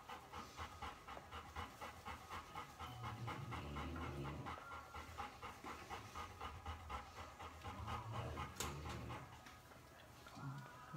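A puppy panting fast and rhythmically, several short breaths a second, with one sharp click about two-thirds of the way through.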